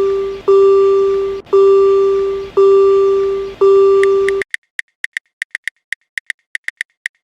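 Japanese railroad crossing warning bell ringing, a steady kan-kan of one ringing strike about every second that stops about four seconds in. It gives way to a fast, uneven run of short high ticks.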